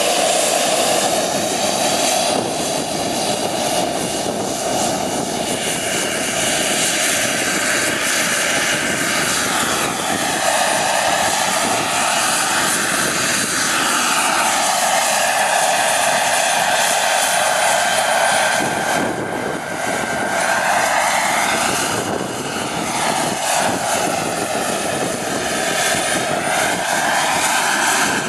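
Radio-controlled model helicopter with a small gas-turbine engine, running as it hovers low: a steady rush of turbine and rotor with a high whine whose pitch drifts up and down.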